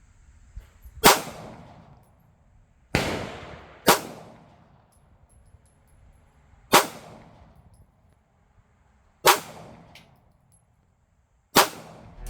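Glock 19 Gen 5 9mm pistol fired in slow, deliberate single shots, one to three seconds apart, each a sharp crack with a short ringing tail.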